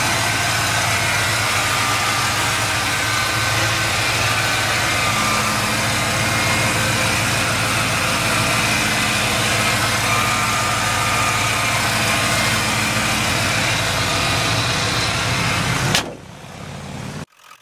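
Ford 5.0-litre fuel-injected V8 idling steadily, heard close up in the open engine bay. The sound drops away abruptly near the end.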